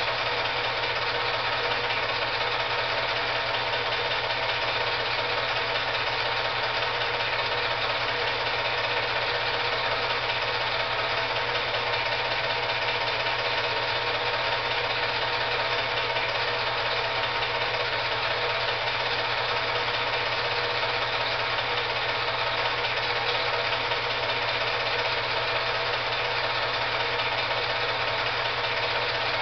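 Steady mechanical whirring and clatter of an 8mm film projector running, with no change throughout.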